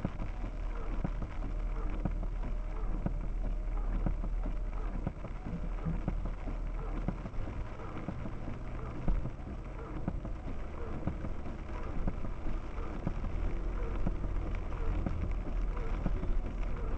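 Inside the cabin of an Audi A6 C5 2.5 TDI quattro driving slowly over a rough, rutted dirt track: the V6 diesel's low rumble under frequent knocks and rattles from the suspension and body over the bumps, with one sharper, louder knock about halfway through.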